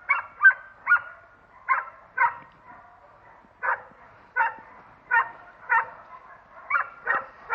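K9 working dog barking at the helper in front of it: a steady run of about a dozen short, sharp barks, roughly one every half second to second, with a brief pause near the middle.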